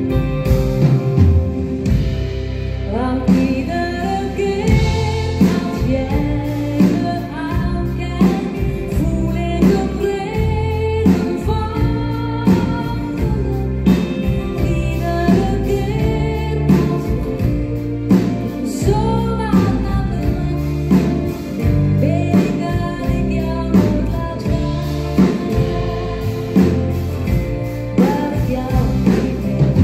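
Live pop song played by a band, with a lead vocal over the instruments.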